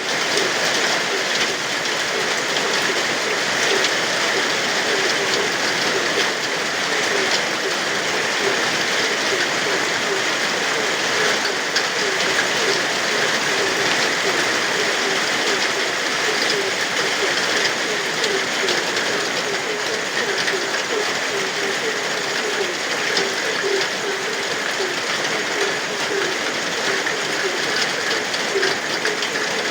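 Steady rain falling, with frogs croaking over it in a run of short, repeated calls.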